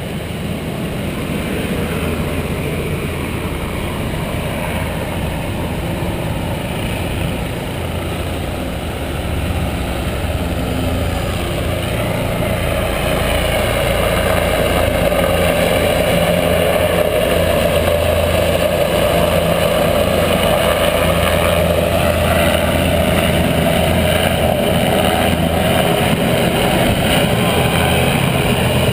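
Whitewater rapids rushing past, with a jet boat's engine growing louder as it comes up through the rapids and then running steadily.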